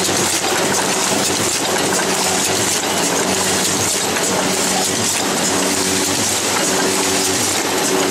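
Automatic carton packing machine running: a steady dense clatter of its moving mechanisms, with rapid clicking over a low steady hum.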